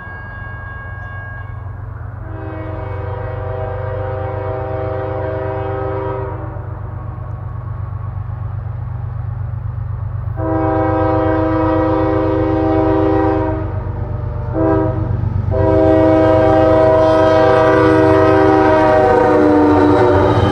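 Horn of a CSX freight train's lead GE diesel locomotive sounding the grade-crossing signal: two long blasts, a short one, then a long blast held as the locomotive passes, dropping in pitch near the end. Under it, a steady low diesel rumble grows louder as the train approaches.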